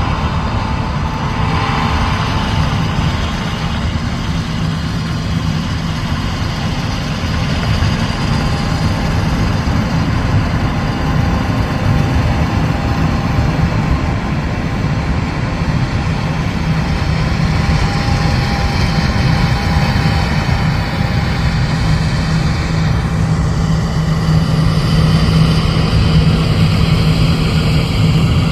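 John Deere S690 combine harvester running steadily while harvesting soybeans: a continuous low engine drone over machinery noise, growing a little louder near the end.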